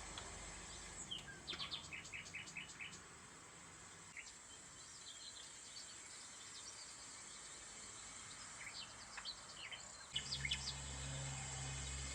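Wild birds chirping and calling: a quick run of about five short repeated notes near the start, scattered calls through the middle, and a busier cluster of calls near the end, over a faint steady hiss. A low steady hum comes in near the end.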